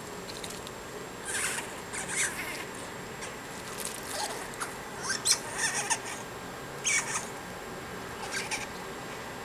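Fox squirrels chattering in about half a dozen short, scratchy bursts while two of them chase each other on a tree trunk.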